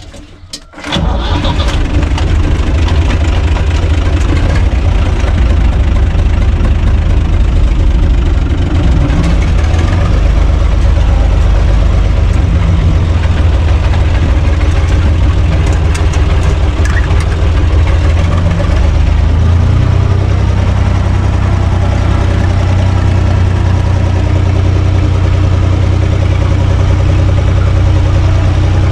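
Diesel engine of a U445 DT 4x4 tractor, heard from inside the cab. It catches about a second in and then runs steadily. Around twenty seconds in its note shifts as the tractor moves off.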